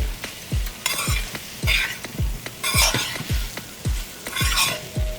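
Bodi (long beans) being stirred in a frying pot, sizzling and scraping in four short bursts. Underneath runs background music with a steady deep beat about twice a second.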